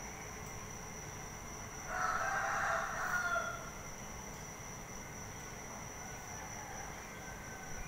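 A rooster crowing once, about two seconds in: a single call lasting about a second and a half.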